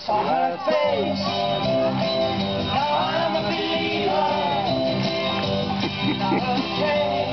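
Music playing: a song with a singing voice over guitar.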